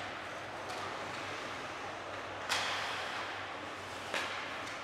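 Ice hockey play in a rink: two sharp cracks of puck and stick, about a second and a half apart, each trailing off briefly over a steady hall hiss.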